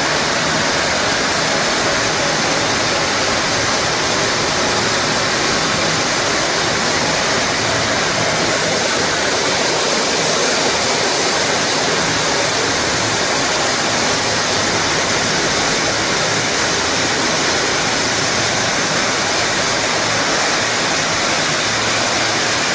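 Yarn spinning machines running in a spinning mill: a loud, steady, hissing din without pause.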